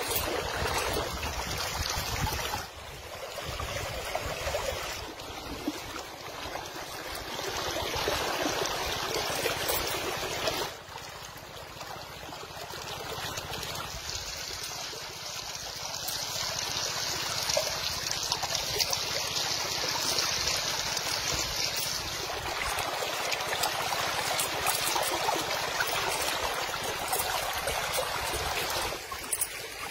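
Shallow river water rushing and splashing over and around rocks, a steady wash that changes abruptly in character several times.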